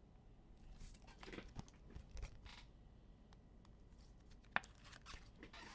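Faint rustling and small clicks of trading cards and their plastic and wrapper packaging being handled, with one sharper click about four and a half seconds in.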